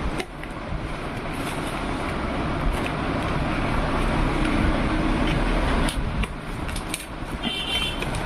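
Packing tape on a cardboard box being slit with a small blade, then the cardboard flaps pulled open, with a few short scrapes and clicks. A steady background noise runs underneath.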